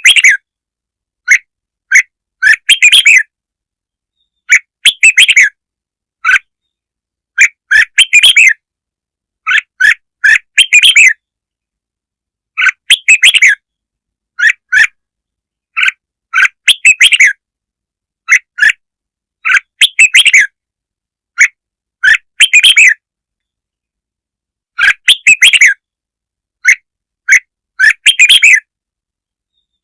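Red-whiskered bulbul singing: short, loud phrases of bright chirping whistles, repeated every second or two with silence between. It is a lure call (chào mào kích mồi) meant to stimulate other bulbuls to sing.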